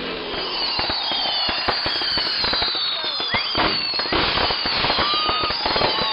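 Consumer fireworks going off on the ground: a dense, rapid crackle of small pops, with several short whistles gliding in pitch over it.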